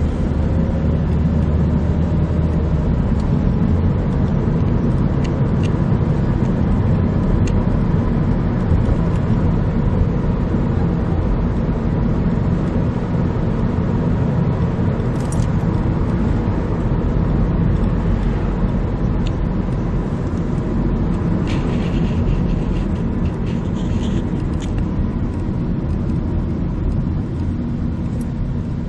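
Steady road and engine noise of a car driving along, heard from inside the cabin.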